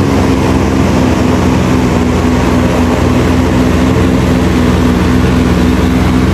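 Paramotor engine and propeller droning steadily as the machine flies low past, the pitch wavering slightly.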